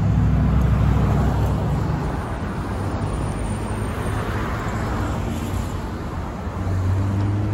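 City street traffic: motor vehicles running and passing, with a low engine hum loudest in the first two seconds and again near the end, over steady road noise.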